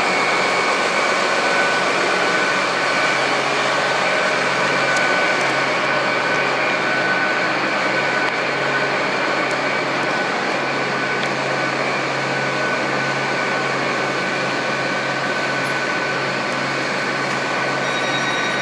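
Great Western Railway express train's underfloor diesel engines running steadily beside the platform: a constant drone with a faint high whine on top.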